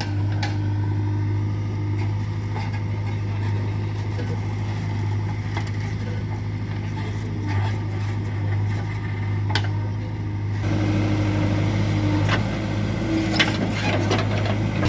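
Heavy diesel engine of earthmoving machinery running steadily at constant speed, with a few short knocks. The sound shifts abruptly about ten seconds in, with more clatter after.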